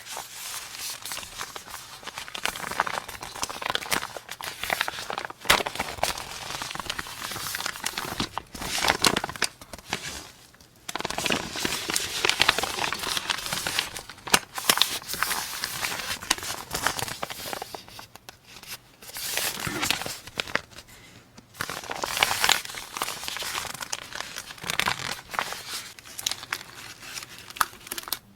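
Packaging being unwrapped and handled up close: continuous crinkling and crackling with many small sharp clicks, pausing briefly a few times.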